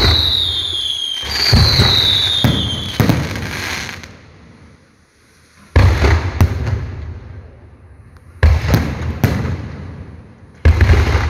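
Aerial fireworks going off: two whistles falling in pitch in the first three seconds, then a string of sharp bangs, mostly in close pairs, each fading over a second or two as the shells burst.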